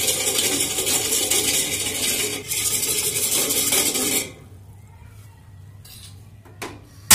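Wire whisk stirring water in a stainless steel bowl, its wires rattling and scraping against the metal as agar agar powder and sugar are mixed in; the stirring stops about four seconds in. A single sharp knock near the end.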